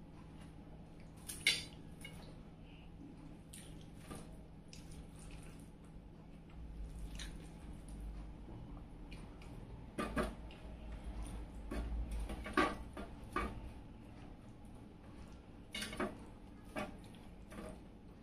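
Close-up eating sounds: wet smacking and clicking from a person eating, with a few sharper clicks scattered through and a low rumble through the middle stretch.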